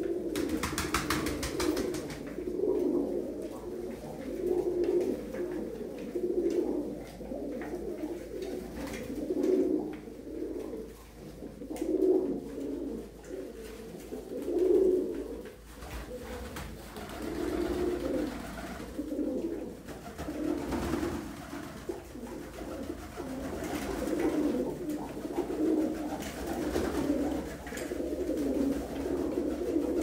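A flock of Iraqi fancy pigeons cooing, many birds calling over one another in a continuous, swelling low murmur of coos.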